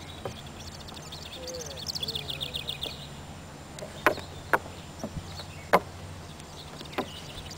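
A horse's hooves knock sharply on a wooden teeter-totter plank as it walks across and steps off, four or five separate knocks in the second half. Earlier, a bird trills briefly.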